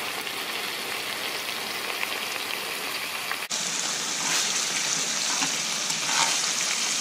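Fish pieces, dill and spring onion greens sizzling in hot oil in a pan, a steady hiss as the herbs fry down and wilt. The sizzle turns louder and brighter about halfway through.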